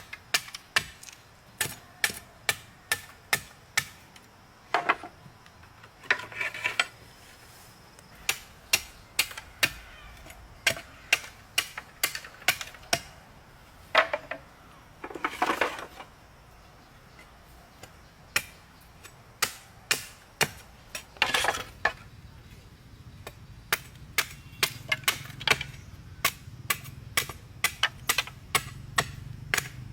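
Repeated sharp strikes of a hand tool on wood or stone, roughly one to two a second and unevenly spaced, broken twice by a longer, noisier sound.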